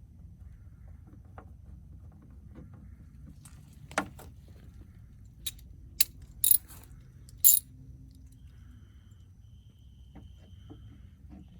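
Sharp metallic clicks and clinks of small tools and hardware over a low steady hum, while a door panel is screwed back on: one about four seconds in, then a quick cluster between five and a half and seven and a half seconds.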